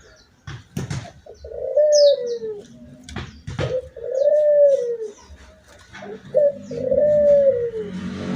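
Puter dove (Barbary dove) cooing its unusual call: three arching coos, each rising then falling in pitch, about every two and a half seconds. A few sharp clicks fall between the coos.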